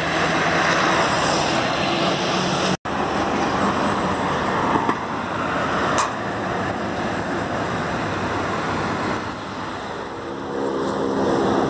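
Heavy diesel dump trucks and other road traffic passing: a continuous engine drone and tyre noise. The sound drops out completely for a moment about three seconds in, and a truck engine's steady hum comes up near the end.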